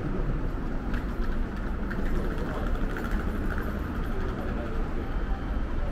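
Steady low rumbling background noise of a busy railway station, with a few faint ticks over it.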